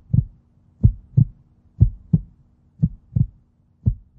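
Heartbeat sound effect: low double thumps, lub-dub, about once a second, over a faint steady hum.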